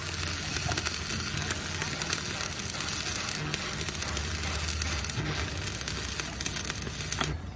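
Stick (arc) welding on a steel truck chassis rail: the electrode's arc crackles and sizzles steadily, over a low hum, and cuts out at the very end.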